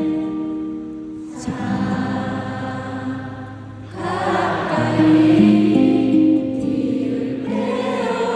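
Large concert crowd singing a slow ballad together in unison over soft sustained instrumental backing, the massed voices swelling about halfway through.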